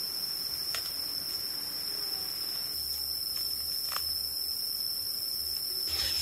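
Insects droning steadily on one high pitch, with a few faint clicks.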